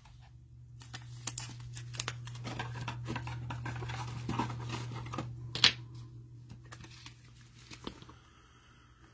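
Football trading cards and their plastic packaging being handled: rustling, scratching and small clicks, with one sharp snap a little past halfway, over a steady low hum that fades near the end.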